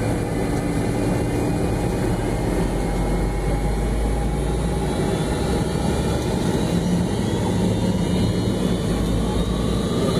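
Cabin noise of an MD-88 taxiing before takeoff: a steady low rumble from its rear-mounted Pratt & Whitney JT8D turbofan engines, with faint whines that rise in pitch over the last few seconds.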